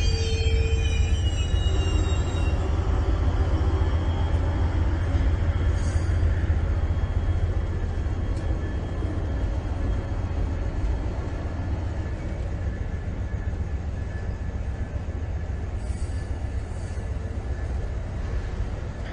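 Train rolling on the rails: high steel wheel squeal dies away about two seconds in, leaving a steady low rumble that slowly gets quieter.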